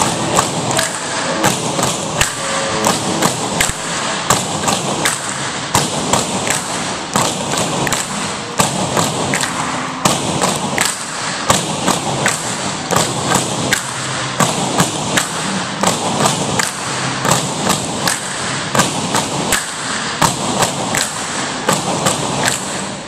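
Tinikling poles tapped on a wooden gym floor and clapped together in a steady, repeating rhythm of sharp knocks.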